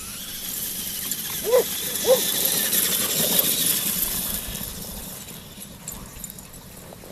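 Small electric motor of a remote control car whining as it drives past, getting louder and then fading away. Two short squeaky calls sound about a second and a half and two seconds in.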